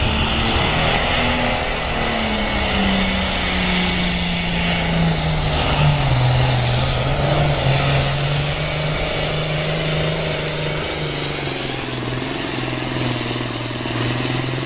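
Super farm class pulling tractor's turbocharged diesel engine at full power dragging the weight sled. Its pitch sags over the first several seconds as the sled bears down, then holds low and steady under the load.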